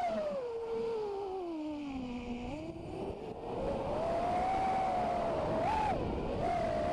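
Eachine Wizard X220 racing quadcopter's brushless motors and propellers whining. The pitch falls steadily as the throttle is cut for a dive, then climbs back as the throttle comes up to pull out, and holds fairly steady with a brief upward blip near the end.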